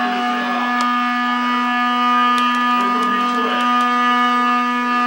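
Electric guitar amplifier holding a steady buzzing drone, with a few faint clicks over it.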